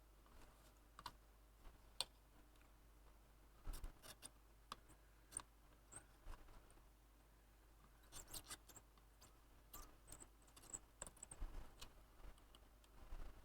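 Faint, scattered small clicks and ticks of tools working against a circuit board while a multi-pin amplifier chip is being desoldered, with a few brief high squeaks among them.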